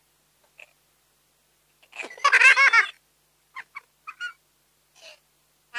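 A short run of high-pitched laughter about two seconds in, lasting about a second, followed by a few brief, faint vocal sounds.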